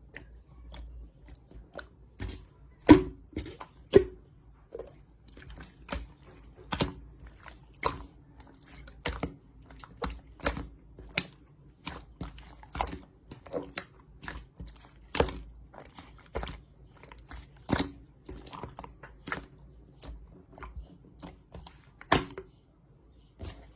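Clear, stretchy slime being pressed and pulled by hand, making sharp sticky pops and clicks at an uneven pace of about one or two a second, the loudest about three and four seconds in.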